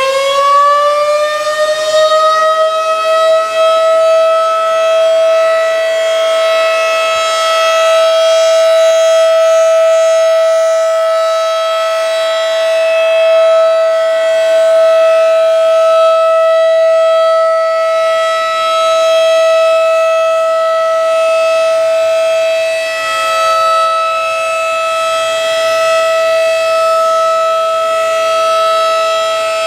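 Federal Signal 2001-DC outdoor warning siren sounding a test. Its pitch rises over the first few seconds as it winds up, then holds as one steady tone that swells and fades gently as the rotating horn turns.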